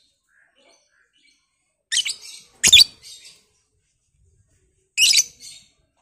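Caged lovebird giving short, shrill calls: two sharp calls close together about two seconds in, and a single call about five seconds in.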